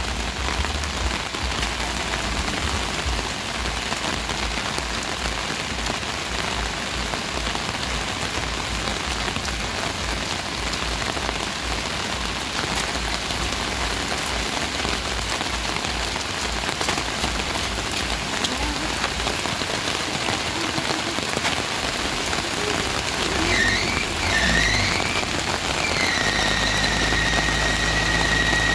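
Steady rain falling, an even hiss. About 23 seconds in, a high tone wavers up and down, then holds steady to the end over a low engine hum.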